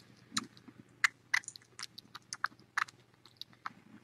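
Young kitten suckling from a feeding bottle's nipple: an irregular run of soft clicks, a dozen or so over a few seconds.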